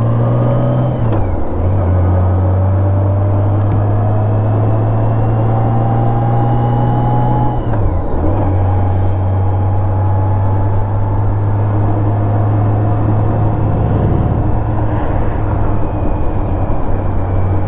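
Touring motorcycle engine pulling under way, with wind rush. The engine note climbs slowly and drops with an upshift about a second in and again about eight seconds in.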